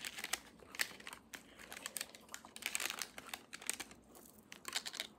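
Soft, irregular crinkling and crackling of food wrapping being handled close to the microphone.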